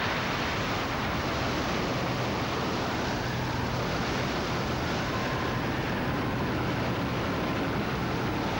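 Steady, even roar of a tornado's rushing wind.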